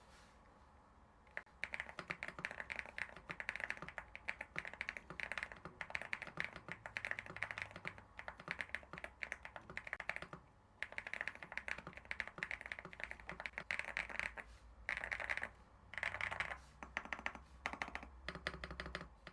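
Typing on an Evo Works EVO75 mechanical keyboard fitted with Akko Creamy Blue Pro V5 tactile switches: fast runs of keystrokes, with a short break about ten seconds in and a few separate bursts near the end.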